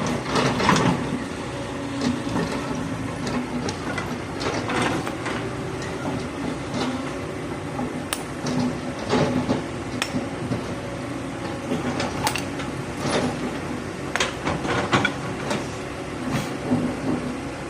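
Heavy excavator working: a steady engine drone with scattered sharp metallic clanks and knocks.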